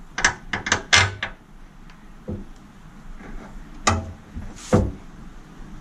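Sharp knocks and clacks of parts being handled: a quick cluster of five in the first second or so, then two more about four and five seconds in. They come from a Honda CBR650R's fuel tank being shifted into place and its mounting bolt being fitted.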